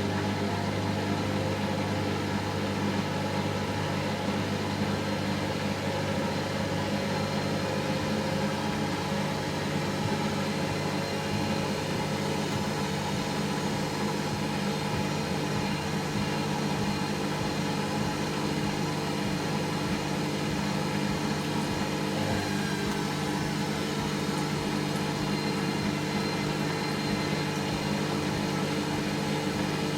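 Hoover Nextra HNL71463D washing machine on its final spin, the drum turning at a steady high speed with an even motor hum and whine.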